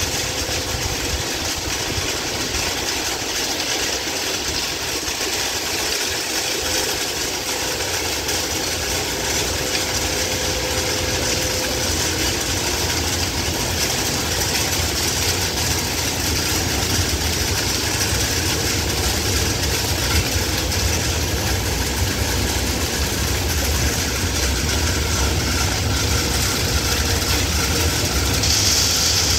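Plasser & Theurer KSP 2001 ballast regulator's diesel engine running steadily with a continuous rushing hiss as the machine works along the track clearing ballast stones off the rails. The low rumble grows louder as the machine draws closer, and the hiss rises sharply near the end.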